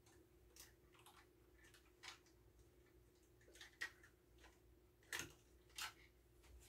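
Near silence: kitchen room tone with a faint steady hum and a scattering of faint light clicks and taps, about eight in all.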